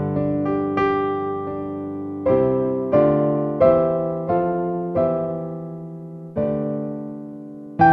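Background music: a slow, gentle piano piece, notes and chords struck and left to fade.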